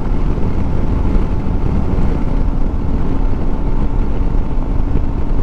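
Wind buffeting the microphone over the steady hum of a Royal Enfield Super Meteor 650's parallel-twin engine cruising at highway speed.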